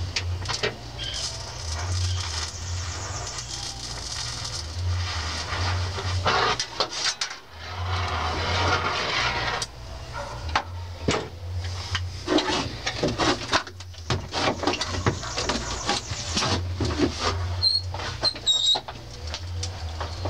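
Welding on a BMW's floor pan: crackling and sharp clicks over a low electric hum that cuts in and out every second or two, with a dense run of crackling about eight seconds in.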